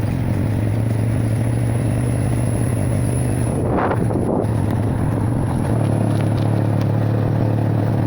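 An engine running steadily at a constant low pitch, with a brief rush of noise about halfway through.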